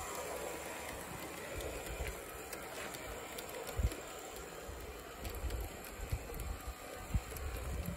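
O gauge model tank locomotive and coach running on track, rolling steadily with scattered light clicks and one louder knock about four seconds in.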